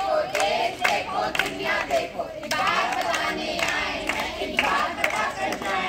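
A group of students singing together while clapping their hands.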